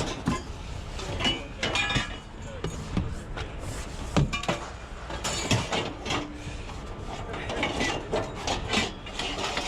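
Scrap metal being pulled and shifted by hand in a junk pile: irregular clanks, knocks and scrapes, with a few short metallic rings.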